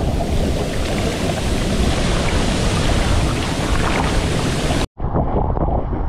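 Waterfall, a loud steady rush of falling water. It cuts out for an instant about five seconds in and comes back duller.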